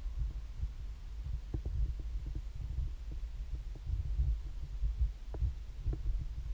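Wind buffeting an outdoor camera microphone: a low, unsteady rumble with a few faint clicks of the camera being handled as it pans.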